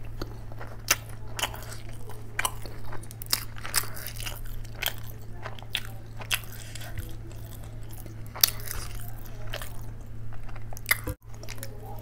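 Close-up wet chewing and lip smacking of a person eating curry-soaked flatbread by hand, with sharp mouth clicks every second or so over a steady low hum. The sound cuts out for an instant near the end.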